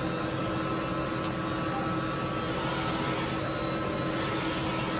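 Steady hum of machine-shop equipment with several steady tones over a low rushing noise. There is one light click about a second in.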